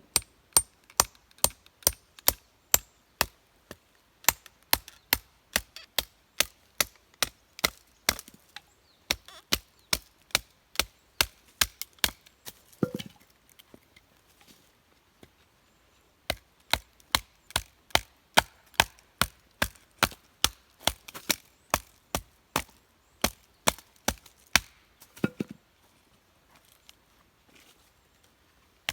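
Quick, even chopping blows on wood, about three a second, as firewood is cut into smaller pieces. Two duller knocks come about 13 and 25 seconds in, the chopping pauses around 14 to 16 seconds in, and it stops a few seconds before the end.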